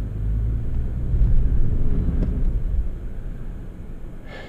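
Toyota FJ Cruiser's 4.0-litre V6 driving over snowy ground, heard inside the cab as a low engine and road rumble. The rumble swells about a second in and eases off over the last second or so.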